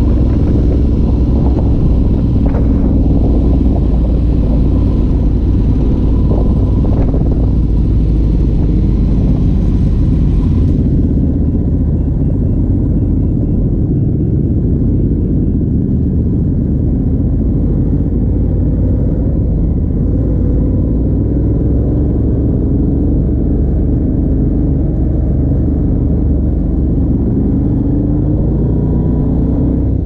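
Ducati Multistrada 1200 S's Testastretta DVT L-twin engine running through a Termignoni racing exhaust on the move, with wind buffeting the microphone. The engine's pitch rises and falls with changes of speed in the second half.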